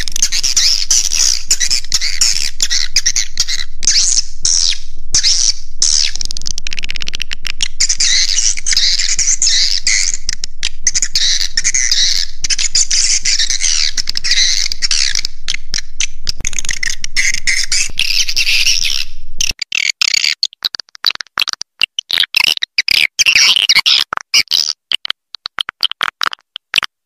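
Recorded swiftlet calls: a dense, loud chatter of many twittering swiftlets, the kind of 'suara inap' lure track played to draw edible-nest swiftlets into a nesting house. A low hum lies beneath until about two-thirds of the way through. From there the chatter turns choppy, broken by many brief silences.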